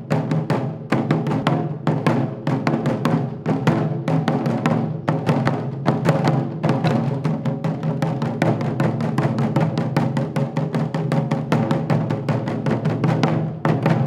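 Several taiko drums struck with wooden bachi sticks, played together in a fast, steady drumming rhythm.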